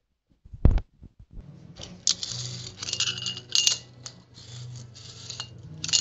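Clattering of small hard objects in several irregular bursts over a steady low hum, after a single sharp thump early on.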